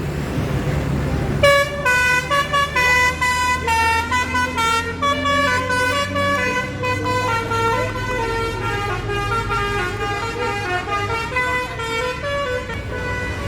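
Bus telolet horn playing a rapid multi-note tune, starting about a second and a half in and stopping near the end, over the bus's low engine rumble.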